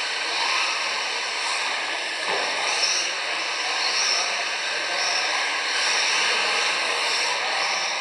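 Electric 1:10 touring cars racing around the track: a steady high whine and hiss of the motors and tyres, swelling briefly each time a car passes close by.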